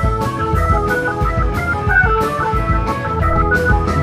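Live band playing: organ-toned keyboard chords over electric guitar and bass, with a steady drum and cymbal beat of about four to five hits a second.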